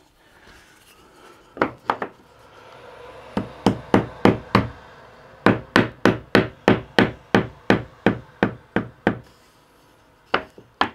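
A claw hammer tapping a sacrificial wood block held against a freshly glued wooden batten, knocking it level: a couple of taps, then a steady run of about three sharp knocks a second, then two more near the end.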